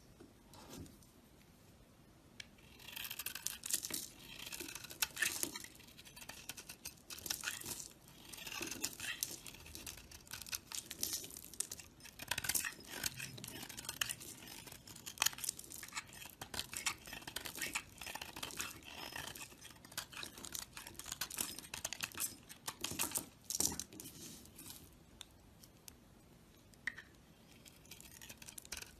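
A knife blade cutting and scraping through dry soap, with crisp crackling scrapes and many small clicks, in runs that start about three seconds in and thin out near the end.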